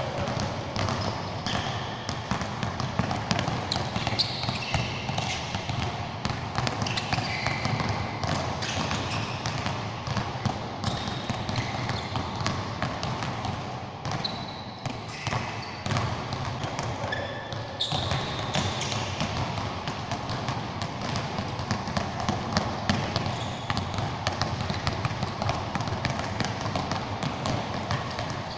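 Basketballs being dribbled on an indoor court, two balls per player, in a dense, uneven patter of bounces with no pause. Short high squeaks cut in now and then.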